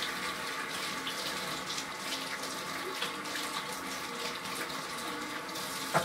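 Kitchen sink faucet running steadily while hands are washed under it, shut off at the very end with a short knock.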